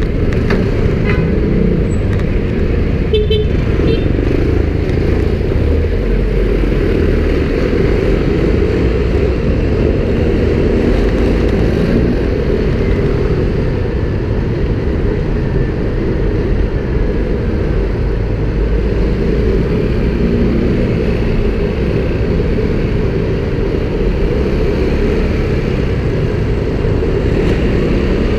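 Street traffic of cars and motorcycles heard from a moving electric scooter, under a steady low rumble of wind and road noise. A brief horn beep sounds about three seconds in.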